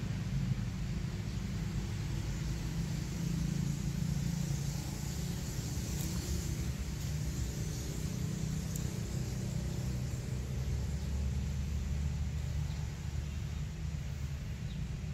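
Steady low rumble of a vehicle engine running, with a couple of faint clicks midway.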